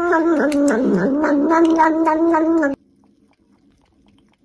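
Domestic cat giving one long, drawn-out yowl with a slightly wavering pitch, already going at the start and cutting off abruptly about two and a half seconds in; a faint low hum follows.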